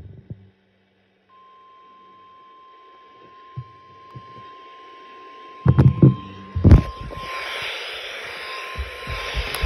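Midland weather radio sounding the steady 1050 Hz NOAA Weather Radio warning alarm tone, faint at first, which signals that a warning such as a severe thunderstorm warning is about to be broadcast. A few loud knocks come a little past the middle, and a steady static hiss rises about two-thirds of the way in, under the tone.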